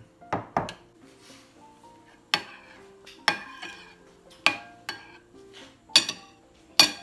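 Metal spoon clinking against a ceramic soup bowl as it scoops tomato soup: a quick pair of sharp clinks near the start, then single clinks about once a second, each ringing briefly.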